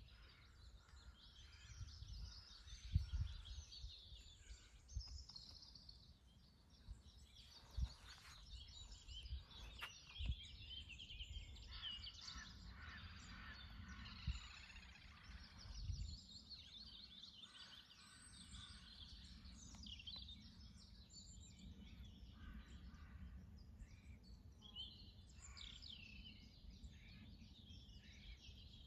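Several small birds singing and chirping, a steady mix of short high calls and trills, over a faint low rumble with a few brief low thumps.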